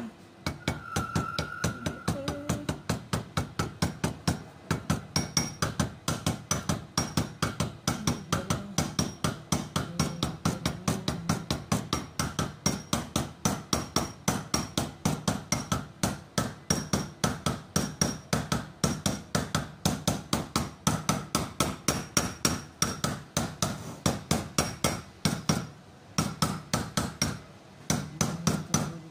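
Plastic-faced mallet tapping on the clutch pulley end of a car A/C compressor during reassembly. The taps come in a steady run of about three a second, with a couple of short breaks.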